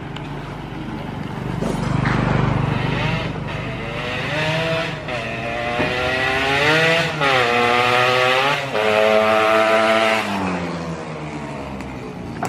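Yamaha RX-King's 135cc two-stroke single-cylinder engine accelerating through the gears. The pitch climbs, drops sharply at a shift about seven seconds in, climbs and holds again, then falls away near the end.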